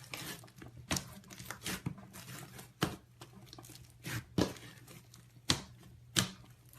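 Slime being squeezed and pulled by hand, with a soft crackling and an irregular series of sharp popping snaps about once a second.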